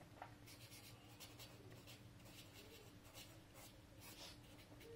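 Pencil writing on paper: faint, short scratching strokes, repeated as a formula is written out, over a faint steady hum.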